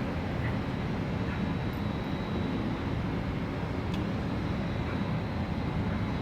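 Steady low rumble of background noise, even throughout with no distinct events, and a faint thin high tone in it.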